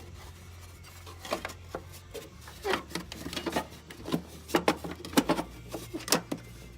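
Irregular small clicks and knocks of metal parts and hand tools being worked on a benchtop planer's opened blade assembly, trying to free a stuck part. They come more thickly in the second half, over a low steady hum.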